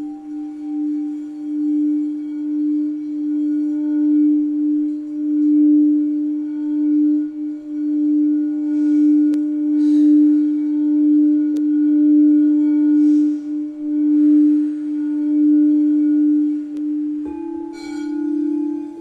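Crystal quartz singing bowl tuned to D, the sacral chakra note, rubbed at the rim and sustaining one steady tone that swells and dips in volume. Near the end a knock is heard and a slightly higher bowl tone takes over.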